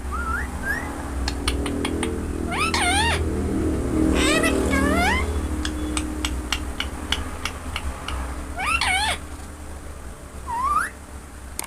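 A parrot giving meow-like calls: a few short rising notes, then several drawn-out, wavering calls and a short rising one near the end, with scattered light clicks between them.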